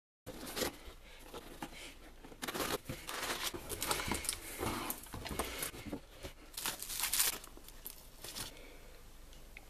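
Cardboard and plastic packaging being handled and torn open: irregular rustling, crinkling and tearing, easing off near the end.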